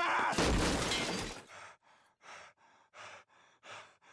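Cartoon sound effect of a shelf of glass jars crashing down and shattering: one loud crash of breaking glass lasting about a second, dying away into a few fainter short noises.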